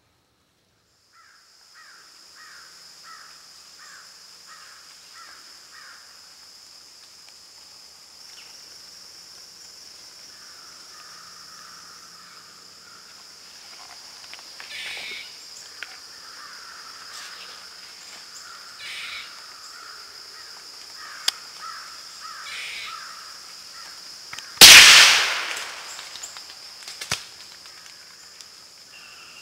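A single shot from a Remington 580 bolt-action .22 rifle about 25 seconds in, by far the loudest sound, its report rolling away through the woods over about a second. Before it, a steady high insect drone, and between about 2 and 6 seconds in a run of about eight short calls, two a second.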